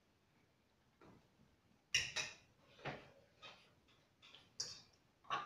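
Metal spoons clicking against ceramic bowls: a few short, sharp taps, irregularly spaced, starting about two seconds in.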